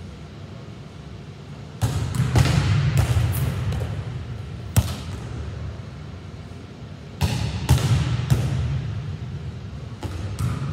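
Volleyball struck and slapping off a wall and the hardwood floor, sharp smacks with an echoing ring in a large gym. They come in two clusters, a few seconds apart, each over a low rumble.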